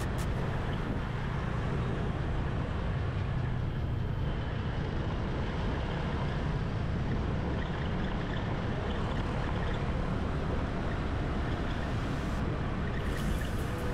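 Wind and road noise on a camera riding along on a motor scooter: a steady, even, low rush. Faint rhythmic high ticks come in near the end.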